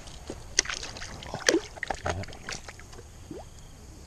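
Shallow water sloshing and splashing around hands and a giant snakehead being lowered into it for release, with a run of short sharp splashes, the loudest about a second and a half in.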